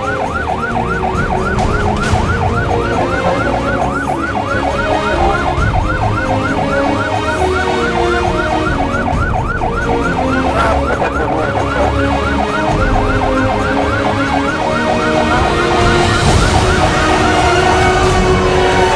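Fire engine siren in a rapid yelp, its pitch sweeping up and down several times a second over the truck's engine drone. Near the end it changes to a slower falling tone.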